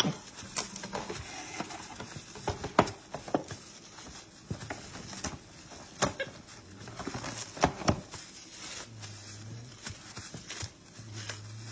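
Plastic cling wrap being pulled from its box and handled, crinkling, with irregular sharp clicks and taps on the countertop.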